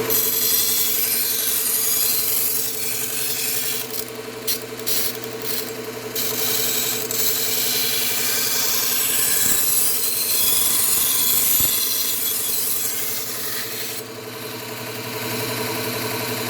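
Steel knife blade ground on a running belt sharpener with a 120-grit Cubitron belt: a hissing rasp of steel on the abrasive over the steady hum of the motor, broken by short pauses between passes about four to six seconds in. The grinding stops about two seconds before the end, leaving the motor running. The passes are raising a burr along the whole edge.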